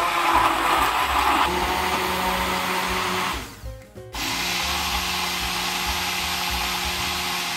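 400-watt immersion (stick) blender running in a beaker of red cabbage leaves and water. It runs in two bursts with a short stop about halfway, rougher in the first second or so as it chops the leaves, then steady.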